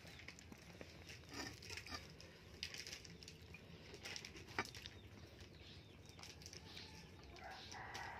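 Faint scattered clicks and rustles of a bare hand picking up rice from a plate and scooping crushed raw beans from a stone mortar, with one sharper click about four and a half seconds in.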